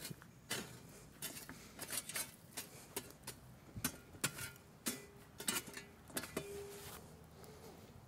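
A shovel jabbing into and breaking up glowing embers and charred wood in a wood fire, giving a scatter of irregular clinks, crunches and small knocks. The embers are being broken down into a bed of coals for grilling.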